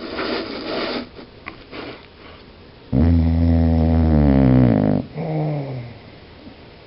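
Dog snoring: a breathy snuffle, then a long, loud rumbling snore of about two seconds followed by a shorter one that falls in pitch.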